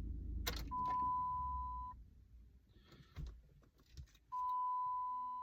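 Two long, steady electronic beeps at one pitch, each lasting a bit over a second, the second starting about two and a half seconds after the first ends, with a sharp click just before the first.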